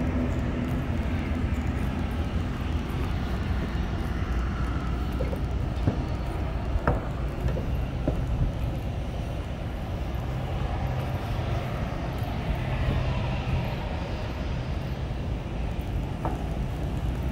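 Steady low rumble of jet aircraft engines running on the airport apron, with a few faint clicks about seven and eight seconds in.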